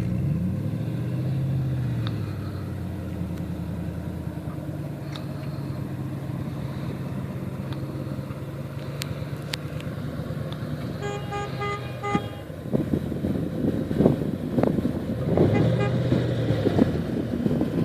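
Off-road 4x4 engine running, its revs rising and falling, with a car horn giving a quick run of short beeps about eleven seconds in; the engine sound turns louder and rougher after the beeps.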